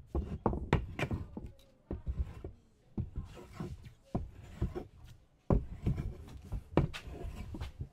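Hand-tool work on wood: irregular knocks and scraping strokes.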